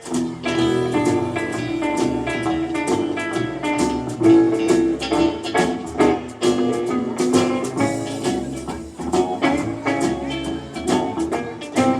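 Live acoustic string band starting an instrumental tune, with quick plucked and strummed notes and no singing.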